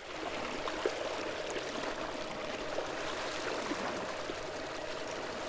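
Running water with a steady, even rush and small scattered splashy ticks, over a steady mid-pitched hum.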